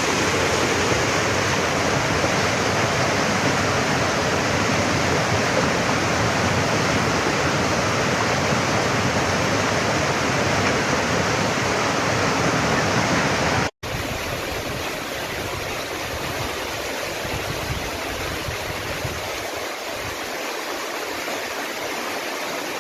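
Rushing floodwater, a loud, steady rush of water noise. It breaks off for an instant about two-thirds of the way through, then carries on slightly quieter and with less low rumble.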